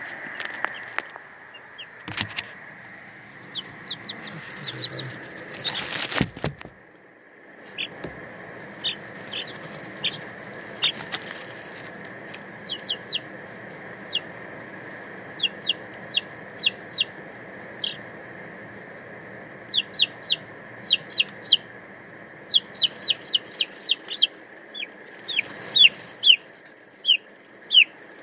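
Two-week-old chicks peeping: short, high chirps in quick runs, few at first and more frequent in the second half. A steady high hum runs underneath, and a few knocks and rustles come in the first several seconds.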